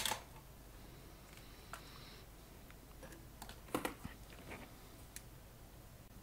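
A few scattered light clicks and taps from handling twisted hookup wire and small hand tools at a workbench. The sharpest click comes right at the start and another about two-thirds of the way through.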